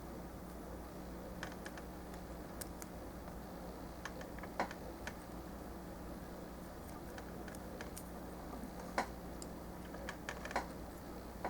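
Sparse small clicks and taps of plastic Gunpla model-kit parts being handled and pressed together, with the sharpest clicks about 4.5, 9 and 10.5 seconds in, over a faint steady hum.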